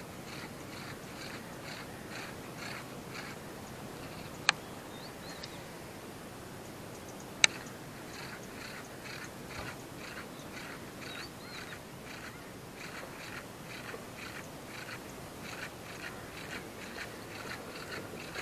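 Baitcasting reel being cranked on a lure retrieve: a soft rhythmic ticking about two to three times a second, broken by two sharp clicks a few seconds apart.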